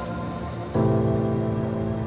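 Background music of sustained ambient chords; a deeper, louder chord comes in suddenly under a second in and holds.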